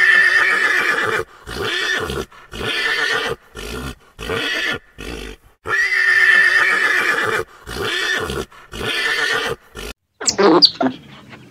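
A pony whinnying twice. Each whinny is one long call followed by a string of shorter neighs. Near the end come quick, high-pitched otter chirps.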